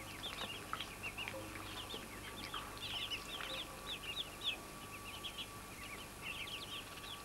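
Muscovy ducklings peeping: many short, high, downward-bending chirps overlapping, several a second, without a break. A faint steady tone sits underneath.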